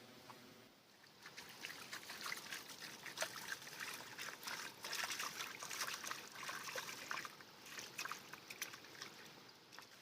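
Water trickling and splashing, a dense patter of small crackly drips that starts about a second in and fades near the end.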